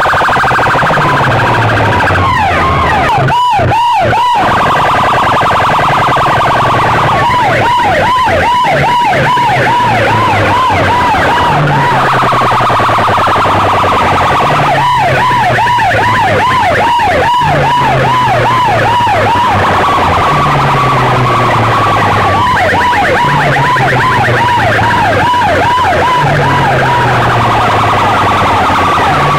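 A truck-mounted stack of horn loudspeakers blasting an electronic siren effect at very high volume. Rapid warbling sweeps up and down in pitch come in stretches every seven or eight seconds, with a steadier tone between them, over a bass note that slides down in pitch about every two seconds.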